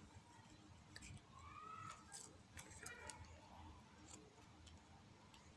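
Near silence, with a few faint clicks and rustles as triangles of foil cut from empty toothpaste tubes are glued and pressed onto a notebook cover, and a couple of faint chirps in the background.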